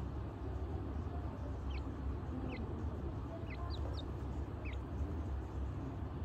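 Francolin (teetar) chick peeping: about half a dozen short, high peeps spread through the middle seconds, over a steady low rumble.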